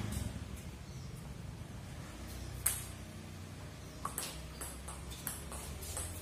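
Celluloid-type table tennis ball clicking off paddles and the table in a rally. One sharp click comes a little under halfway through, then a quicker run of clicks about every half second near the end.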